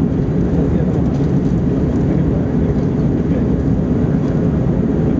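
Steady, loud cabin noise aboard an Airbus A321-231 in flight: a low rumble from its IAE V2500 engines and the rush of air over the fuselage, heard from inside the cabin.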